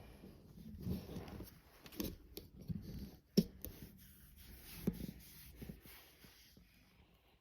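Scattered light knocks and clicks with soft rustling, like close-up handling noise; one sharper click comes about three and a half seconds in.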